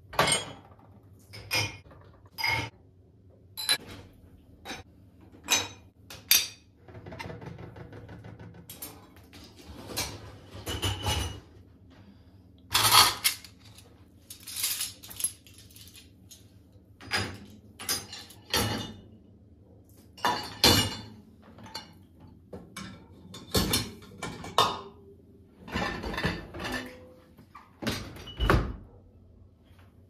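Cups, glasses and a bunch of cutlery clinking and clattering as they are set into a dishwasher's racks and cutlery basket, a long run of separate knocks and clinks.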